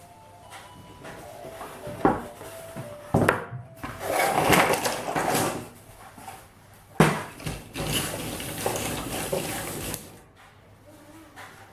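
Cardboard jigsaw puzzle box and pieces being handled: irregular rustling with a few sharp knocks, the loudest about seven seconds in.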